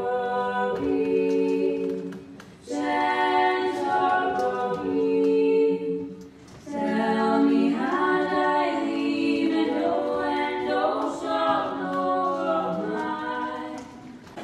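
A woman singing a slow melody into a handheld stage microphone, unaccompanied, with long held notes in three phrases separated by short breaths.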